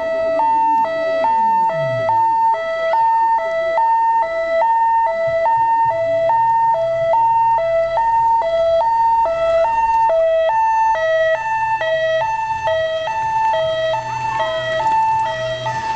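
Two-tone hi-lo siren, switching steadily between a higher and a lower note about every half second. A low steady hum joins about five seconds in.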